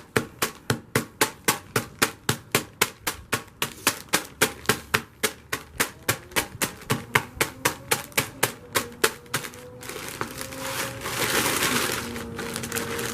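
A block of dry ice being pounded inside a plastic bag: steady strikes at about three a second. About ten seconds in the strikes stop and the bag rustles and crinkles.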